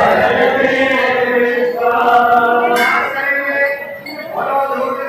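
Voices singing a devotional chant with music, in long held notes that drop away briefly about four seconds in.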